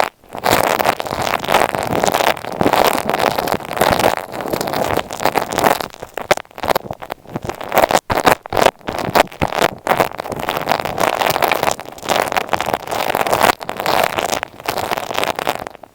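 Close-up scratching, rubbing and crackling directly on an earphone microphone, a dense run of quick strokes with short breaks about six and eight seconds in.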